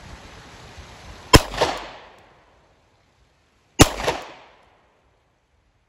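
Two pistol shots from a Sig Sauer P320 compact, about two and a half seconds apart, the first about a second and a half in. Each crack is followed a moment later by an echo.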